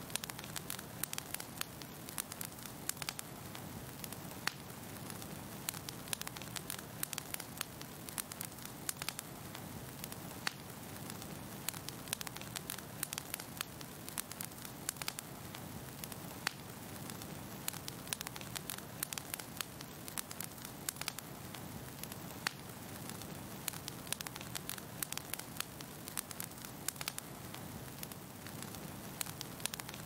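Wood fire crackling: frequent sharp pops and snaps, irregularly spaced, over a soft steady rush of burning flames.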